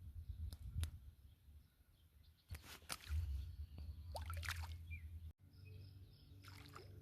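Faint outdoor ambience with a low wind-like rumble, broken by a few brief clicks and rustles.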